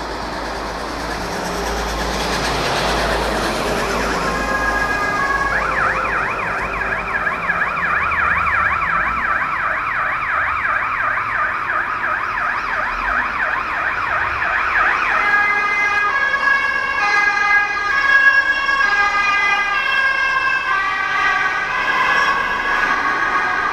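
An emergency vehicle's siren on the street below, over traffic noise. After a few seconds the siren starts a fast, rapidly rising and falling yelp. Partway through it switches to a pattern of stepped, held tones.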